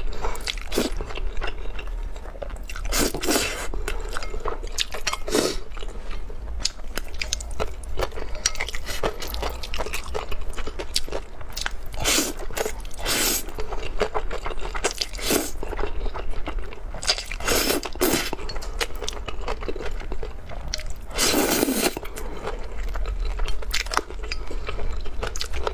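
Close-miked slurping and chewing of thin sauced noodles, with louder slurps every few seconds between bouts of chewing.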